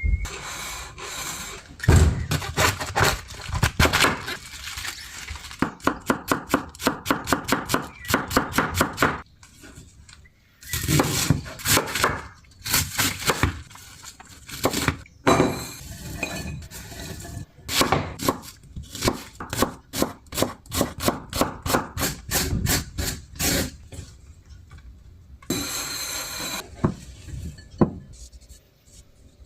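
Kitchen knife chopping vegetables on a wooden cutting board, in quick runs of about five strokes a second, with stretches of rustling and scraping between the runs.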